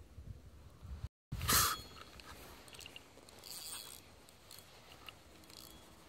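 Close crackling and rustling handling noise, with a sharp loud burst just after a brief dropout about a second and a half in, then scattered clicks and crackle.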